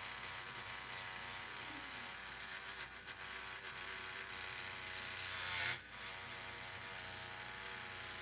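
Small handheld rotary tool running a felt polishing wheel against a plastic part, a steady motor whine. About five and a half seconds in, the pitch rises and gets louder, then drops briefly before settling back.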